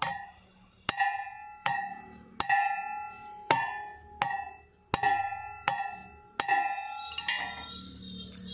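A hammer beats a steel drift against the bearing race in a cart wheel's metal hub. There are about nine hard blows, a little under a second apart, each leaving a metallic ring. Lighter, quicker taps follow near the end.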